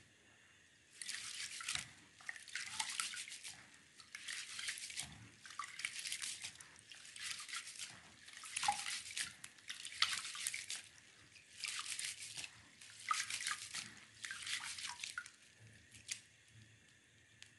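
Rice being washed by hand in a plastic colander bowl of water, rinsing out the starch: rhythmic swishes of water and grains, about one a second, stopping near the end.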